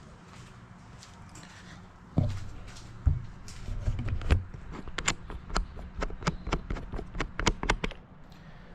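Parts of a flat-pack welding table being unpacked and set down: two heavy thumps, then a quick run of sharp knocks and clicks as hard pieces hit one another and the floor.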